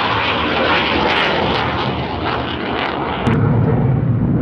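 Military jet aircraft flying overhead, a loud, continuous jet engine noise that shifts to a lower rumble about three seconds in.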